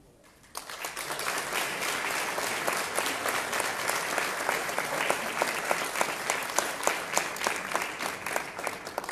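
Audience applauding, breaking out about half a second in and stopping abruptly near the end, with single sharp claps close to the microphone standing out.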